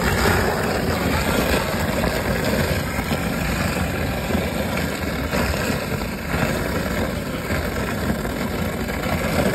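Floodwater swirling and gurgling down an open floor drain in a whirlpool, a steady rushing noise.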